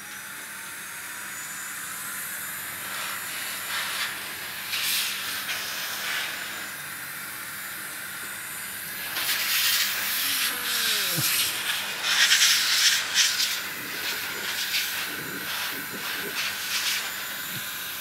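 Battery-powered handheld air blower running, a steady high hiss of air with a rising motor whine at the start. The hiss surges louder several times as the blower is aimed into the server's fans and heatsink to blow out built-up dust.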